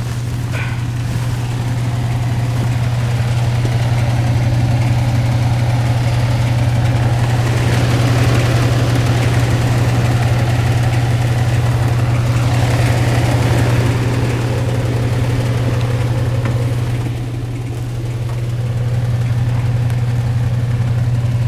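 Attic HVAC unit running with a loud, steady low hum. A rushing, airy noise over it swells, dips for a few seconds and rises again.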